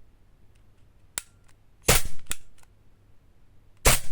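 Gas-powered airsoft pistol fired twice, about two seconds apart: two loud sharp reports, the first followed closely by a second snap. A lighter click sounds about a second in, between the slow trigger resets and shots.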